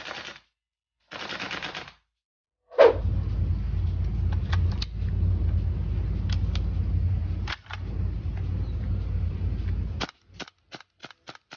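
Tokyo Marui AKM gas blowback airsoft rifle firing on full auto in long bursts, the bolt cycling rapidly with a short break in the middle, followed by about six separate sharp shots or clicks near the end.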